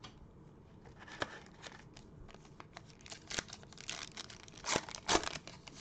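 Plastic-foil wrapper of a Panini Prizm basketball card pack being torn open and crinkled by gloved hands: a run of uneven crackles, loudest in the last two seconds.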